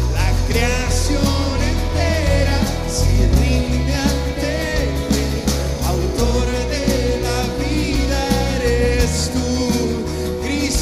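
Live worship band playing a Spanish-language praise song: sung vocals over electric bass, drum kit and cymbals, with a steady beat.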